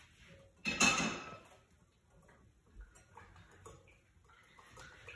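A sudden clatter of kitchenware about a second in, fading quickly, then faint scattered clinks and taps.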